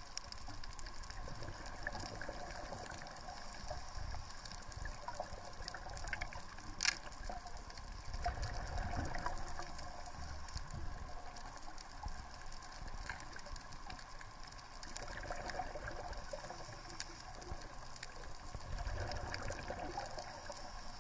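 Underwater reef ambience: a steady low rumble with many faint scattered clicks and crackles, and one sharper click about seven seconds in.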